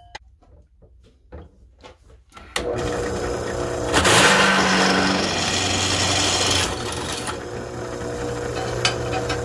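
A few light knocks as a steel plate is handled on a benchtop drill press table, then the drill press motor starts suddenly about two and a half seconds in and runs with a steady hum. From about four seconds in to six and a half, the twist bit cuts into the steel plate, the loudest part, and then the motor runs on freely.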